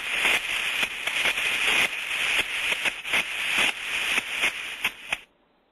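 Ultrasound-detector recording of a thermodynamic disc steam trap cycling very rapidly: a hissing rush broken by quick, irregular pulses several times a second, which cuts off suddenly near the end. This is the 'machine gunning' or 'motorboating' of a worn disc trap, which wastes energy.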